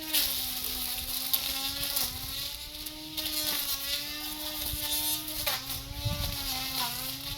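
Small gasoline lawn mower engine running fast with a steady high buzz, its pitch dipping briefly a few times as it takes load.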